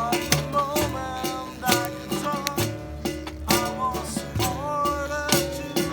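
Live acoustic music: a string instrument strummed in a steady rhythm, with a wavering melody line over it and no sung words.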